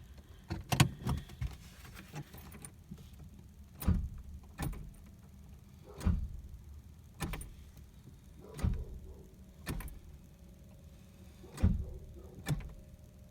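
A car that won't start: sharp clicks every second or two as it is tried again and again, with no starter cranking and no engine catching. A faint steady hum comes in about two-thirds of the way through.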